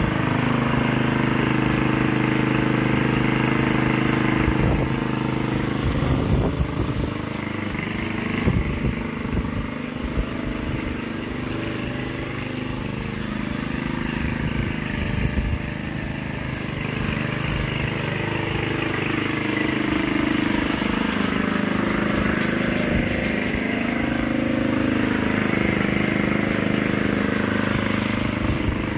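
Petrol walk-behind lawn mower engine running steadily while being pushed across grass. It grows quieter in the middle as the mower moves away and louder again as it comes back, with a few brief knocks a few seconds in.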